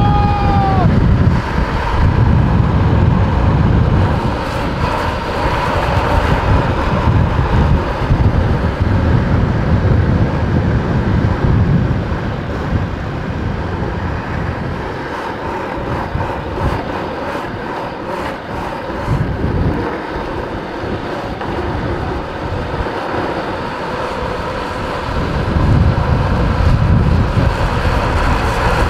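Wind buffeting the microphone at speed over a steady road rumble, from a camera vehicle following a downhill longboarder. The low rumble eases off through the middle and swells again near the end.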